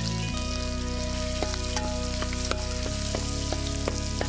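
Sliced onions sizzling in hot oil in a large pot, with irregular sharp crackles. Background music with low held chords runs underneath, changing chord twice.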